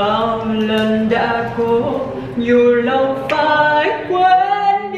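A group of voices singing a birthday song together, unaccompanied, in long held notes.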